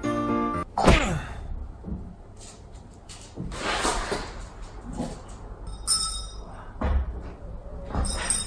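A few muffled thumps and knocks, a second or two apart, the loudest about a second in, after the end of a stretch of music.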